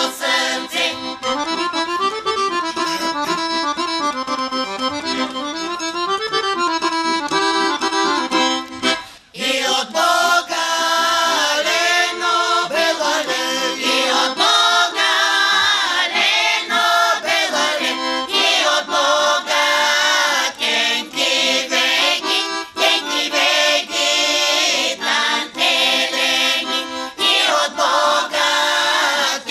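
A Bulgarian women's folk choir sings a traditional song with piano accordion accompaniment, the accordion prominent. There is a short break about nine seconds in, after which the voices and accordion carry on together.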